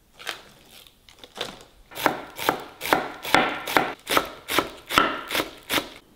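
Chef's knife chopping green onions on a wooden end-grain cutting board: a few scattered cuts, then from about two seconds in a steady run of strokes, about two and a half a second.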